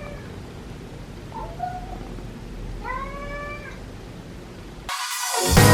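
Domestic cat meowing: a short meow, then a longer one about three seconds in. Loud rock music starts near the end.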